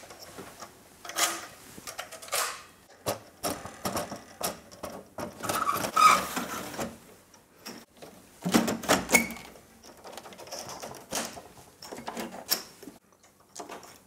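Irregular metal clicks, scrapes and knocks as the SGI Octane's system board is slid back into its chassis and latched by its side levers, which pull the board onto its compression connectors. The loudest scrapes come about halfway through and again a few seconds later.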